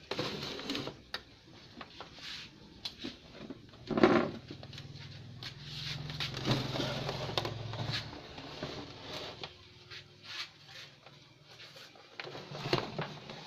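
Clicks, knocks and clatter of a CRT television's plastic cabinet and metal-shielded chassis being handled while it is put back together, with one loud thump about four seconds in.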